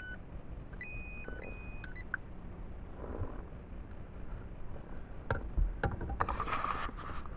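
Short electronic beeps from a handheld metal-detecting pinpointer, stepping between a higher and a lower tone over the first two seconds, as it sounds off on metal hidden inside a lump of coal. Then two sharp knocks and a brief rustle of handling.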